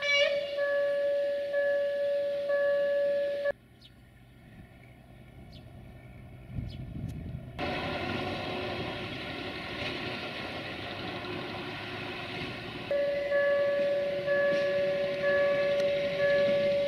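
Level crossing warning signal sounding, a steady tone with a beep pulsing over it, and after a brief quiet gap the rumble of a rail maintenance vehicle and herbicide-spraying wagon running past on the track. Near the end the crossing signal sounds again.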